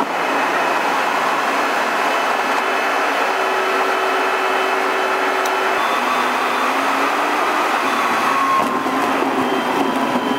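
Jet airliner cabin noise from a seat beside the wing: the turbofan engines and the airflow make a steady rush, with faint steady hums in it.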